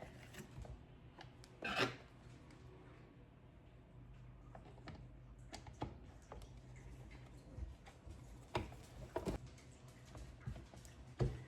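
Faint rubbing and scuffing as weed eater parts are handled and fitted together, with a handful of light clicks and knocks scattered throughout.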